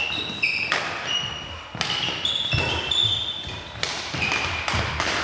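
Badminton rackets striking the shuttlecock in a rally, a sharp hit about once a second, with sports shoes squeaking on the hall floor between the hits.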